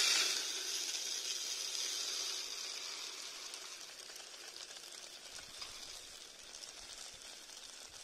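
Dry crushed grain pouring out of an upturned plastic bottle into a plastic dish: a steady hiss with fine patter that starts suddenly and fades over several seconds as the gravity feeder fills and the flow slows.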